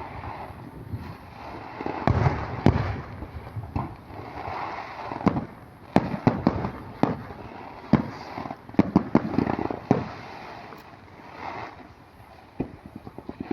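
Aerial fireworks going off: a run of sharp bangs at irregular intervals with crackling between them.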